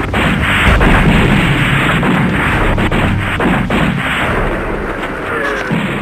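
Dubbed-in battle sound effects: a dense barrage of explosions and gunfire, a continuous rumbling din with sharp cracks scattered through it.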